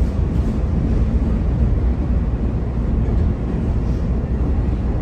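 CTA Orange Line rapid-transit train running between stations, heard from inside the car: a steady low rumble of wheels on rail and traction motors.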